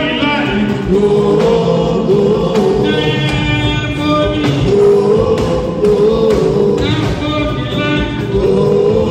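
Loud live juju music: voices singing in chorus over a band with percussion.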